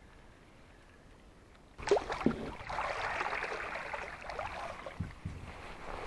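Water splashing and sloshing against a kayak. It starts suddenly with a couple of sharp knocks about two seconds in, then runs as a steady wash that eases near the end.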